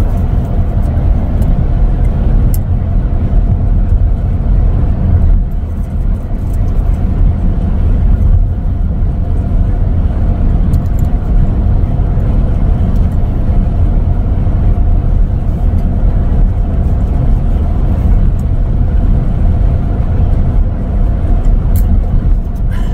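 Steady road and tyre rumble inside the cabin of a moving Tesla Model X, an electric car with no engine note, with a faint hum over the low rumble.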